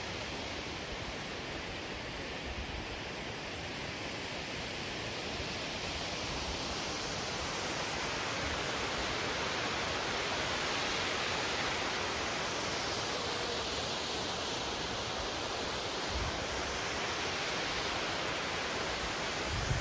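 Waterfall rushing: a steady, even noise of falling water, growing a little louder from about seven seconds in.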